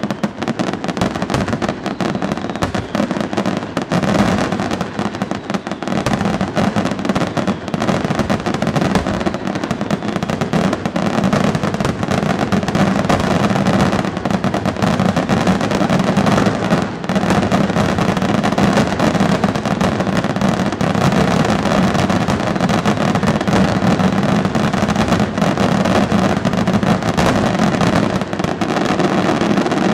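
Aerial fireworks shells bursting in a rapid, unbroken barrage: overlapping bangs and crackling follow one another with no pause.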